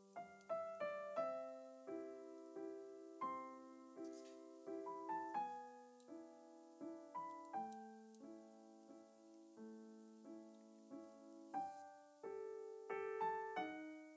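Background solo piano music: a gentle melody of single notes and chords, each struck and left to ring out.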